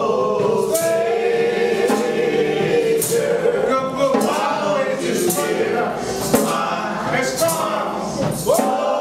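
Church choir and congregation singing a gospel song, voices held on long bending notes, with a percussive beat about once a second.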